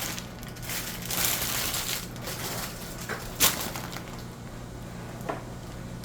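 Rustling, crinkling handling noise, strongest about a second in, with a sharp click about three and a half seconds in and a softer click near the end.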